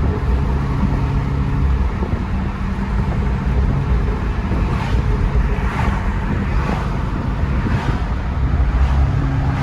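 2018 Jeep Grand Cherokee SRT's 6.4-litre V8, fitted with an AFE cold air intake and a Borla cat-back exhaust, running at a steady pace under way, with road noise. It is a continuous low hum.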